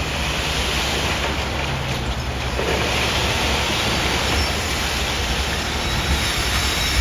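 Diesel truck engine running steadily while a load of shred slides out of the raised end dump trailer, an even rushing noise over the engine's low hum.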